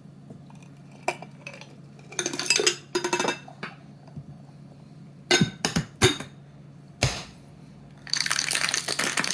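Ice cubes clinking and clattering as they are tipped from a glass into a cocktail shaker, with a few sharp knocks. About eight seconds in, the shaker starts being shaken hard with the ice: a dense, continuous rattle. This is the wet shake that chills an egg-white whiskey sour after the dry shake.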